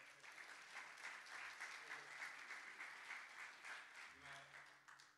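Congregation clapping, a dense patter of many hands that dies away about four and a half seconds in.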